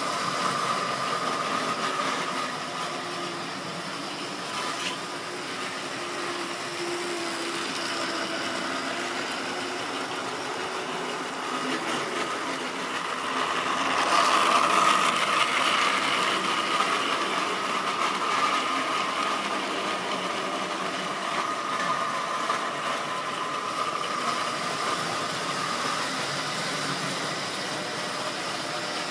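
Model railway trains running on the track: the steady whirr of a small electric locomotive motor with the rattle of wheels and coaches, loudest about halfway through as a rake of coaches passes close by.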